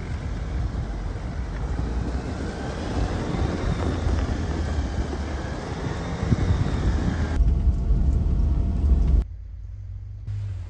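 Jeep driving on a snowy off-road trail: a steady low rumble of engine and tyres, with a hiss over it that drops away about seven seconds in. About nine seconds in the sound cuts to a much quieter stretch, and the low rumble comes back near the end.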